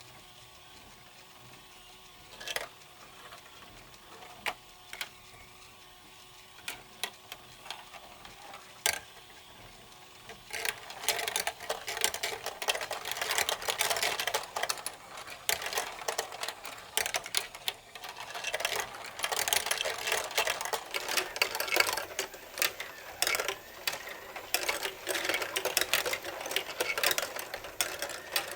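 Marbles rolling and clicking along a plastic building-block marble run: a few separate clicks at first, then from about ten seconds in a dense, continuous clatter of many marbles.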